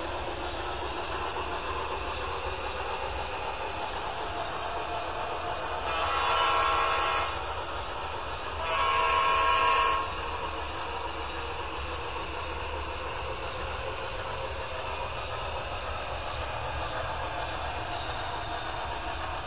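Sound-equipped HO-scale model locomotive sounding two long horn blasts of chords, about six and eight and a half seconds in, the second a little louder. Underneath is a steady running noise from the layout.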